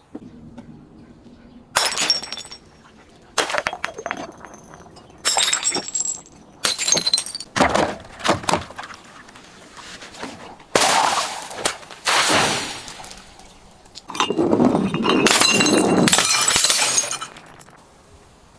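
Glass bottles breaking and crunching in a series of separate bursts with high clinking of shards, ending in a longer stretch of crunching about three seconds long.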